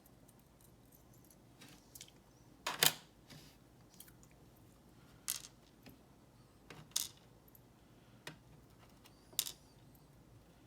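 Brass Abus 8345 padlock and its lock core being handled: sparse small metal clicks and clinks, about a dozen spread out, the loudest about three seconds in.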